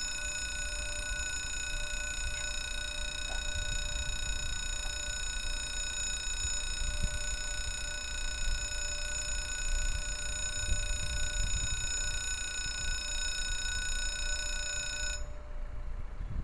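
Level crossing's electronic warning ringer sounding one steady, unbroken tone while the barriers move, then cutting off suddenly about fifteen seconds in, with a low rumble of traffic beneath.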